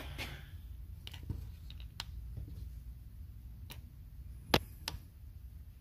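Handheld pin-type moisture meter being handled and pressed into a dry wooden stump: a scattering of short, sharp clicks and taps, the loudest about four and a half seconds in, over a low steady hum.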